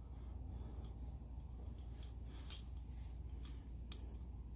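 Faint light clicks and scraping of a piston ring as it is spread with the fingers and worked around the piston into its groove, over a low steady hum.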